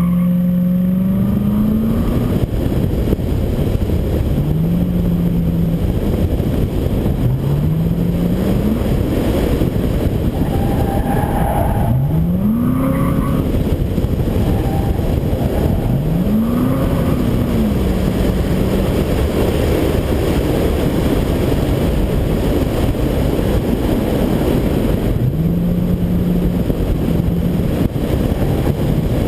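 Pickup truck engine revving up and falling back again and again through an autocross course, about seven climbs in pitch, under a heavy rush of wind on a roof-mounted microphone.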